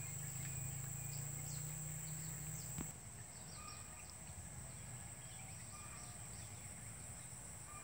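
Forest insects keeping up a steady high shrill, with many short, high, falling chirps over it. A faint low hum stops with a click about three seconds in.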